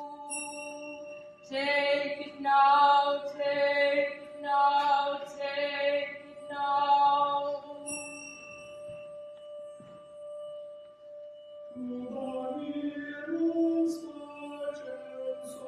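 Live vocal music over a steady held drone: several short sung phrases in the first half, a stretch with only the drone, then lower voices moving in pitch from about twelve seconds in. A brief high chime sounds twice.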